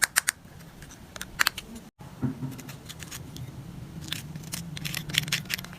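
A series of sharp clicks and snaps at irregular intervals, a few per second, loudest near the start and again about a second and a half in, over a faint low hum.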